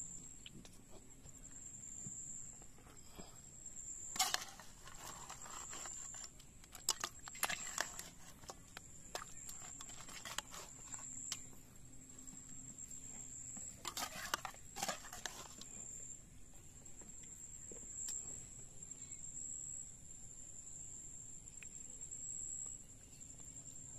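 A metal spoon clinking and scraping against a metal cooking pot in several short bursts as crab curry is served out, over a steady high-pitched insect trill.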